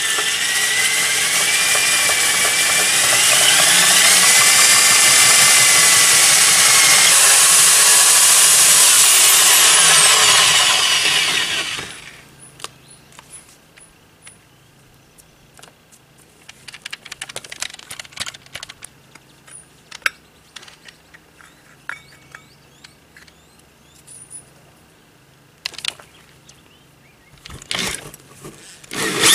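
Corded Makita drill spinning a wire wheel against the sheet-metal frame of an RV hatch opening, its motor whine wavering and gliding in pitch as the load changes. It stops about twelve seconds in, leaving quieter clicks and scrapes of handling, and starts again at the very end.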